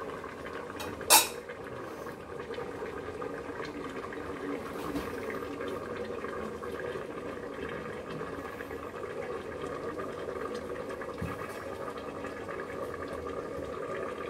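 A stainless steel lid clinks down onto a metal karahi about a second in. Then comes a steady simmering and hiss of the covered thin fish curry cooking over a gas burner set to medium-low.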